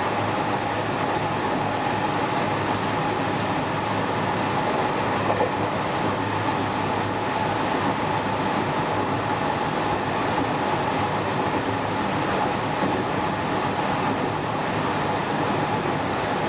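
Running noise inside a JR West 207 series 1000-subseries motor car with a Toshiba GTO-VVVF inverter, travelling at a steady speed: an even rumble of wheels on rail with a steady whine held at one pitch.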